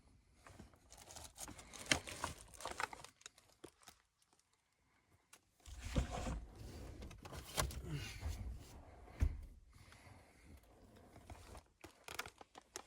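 Rustling and crinkling with scattered light knocks and clicks, from things being handled at close range. It stops briefly about four seconds in, then returns louder with a low rumble for a few seconds.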